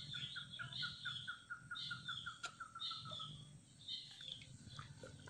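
Faint bird calls: one bird repeats a short note about five times a second and stops about three seconds in, while higher chirps come and go throughout.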